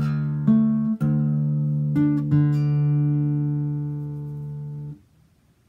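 Acoustic guitar picked slowly: five single notes over about two and a half seconds, left ringing together, then damped all at once about five seconds in.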